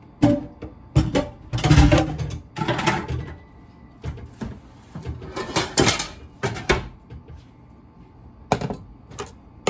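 Metal cooking pots clattering and clanking: a run of loud, irregular knocks and rattles over the first seven seconds, then two more knocks near the end as the aluminium pot is brought to the stovetop.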